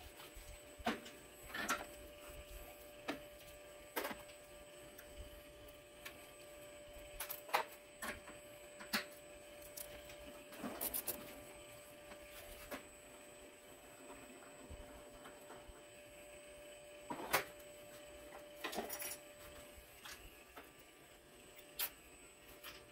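Irregular metallic clicks and clinks, a dozen or so, as tools and small parts of a Bosch common-rail diesel injector are handled and set down on a steel workbench during disassembly, over a faint steady hum.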